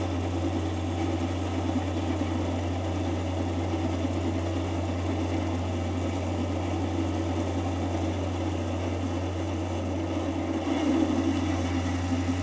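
Metal lathe running steadily while its cutting tool takes small passes on tough hardened steel. There is a constant low motor hum under the rough scraping noise of the cut.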